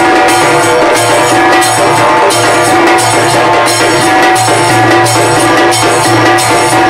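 Background music with a steady percussion beat.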